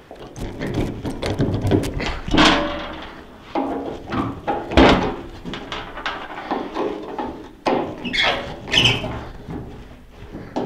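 Clunks, scrapes and short squeaks of metal-on-metal work at the cam-lock fasteners of a 1951 John Deere MT's sheet-metal cowl, several of them rusted in place. There is a loud knock about five seconds in.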